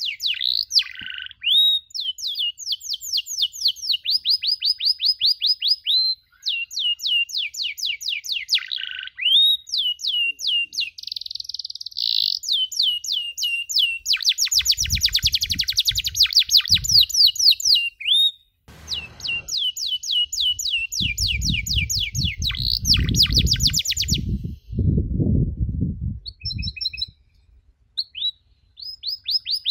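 Domestic canary singing: fast rolling trills of rapidly repeated high chirps, phrase after phrase with brief breaks, and a short pause near the end. A low rumbling noise sits under the song for a few seconds at a time around the middle.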